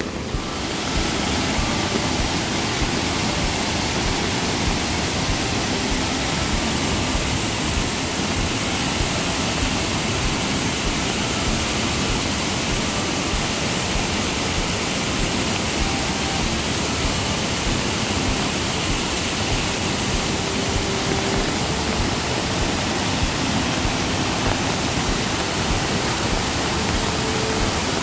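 Steady rush of Ramboda Falls, a tall waterfall in heavy flow, its water high after the rain.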